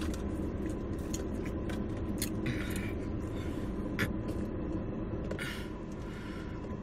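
Eating sounds: chewing with a few small clicks and short rustles, over a steady low background hum.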